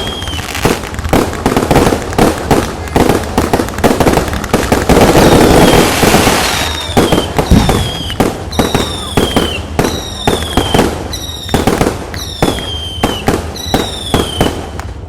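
Fireworks and firecrackers going off in rapid, irregular bangs, with a dense stretch of crackling about five to six seconds in. In the second half a short falling whistle repeats about once a second among the bangs.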